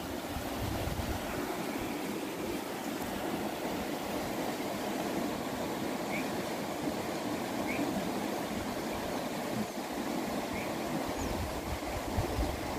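Steady outdoor background noise, with a few faint, short high chirps in the second half.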